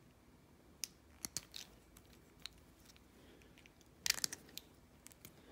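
Faint, scattered scrapes and clicks of a hand deburring tool's blade shaving excess plastic from the edges of a small 3D-printed part, with a quick run of them about four seconds in.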